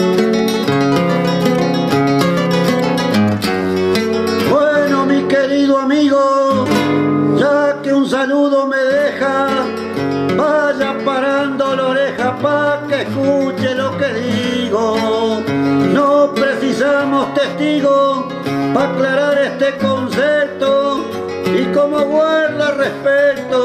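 Acoustic guitar playing plucked bass notes and chords in an Argentine folk style.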